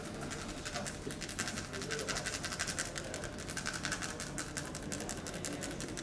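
A barber's hands doing rapid percussive massage, chopping or tapping on the client's head or back at about ten light strikes a second, thickest in the middle.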